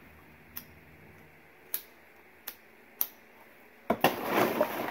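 Four short, sharp clicks spread over about three seconds, then, near the end, loud rustling and clattering as hands rummage through items in a box.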